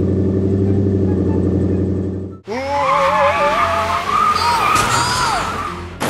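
A steady low drone, then, after a sudden break about two and a half seconds in, a long wavering screech of tires skidding, as in a vehicle sound effect.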